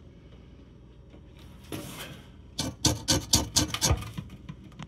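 Bristle brush scrubbing paint stripper onto the painted sheet metal of an old lantern: one short rub, then a quick run of several scratchy strokes.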